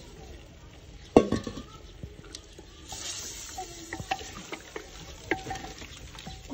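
Wooden spatula stirring chicken livers in a clay pot, knocking and scraping against the pot, with some sizzling from the hot oil. The loudest sound is a single knock about a second in.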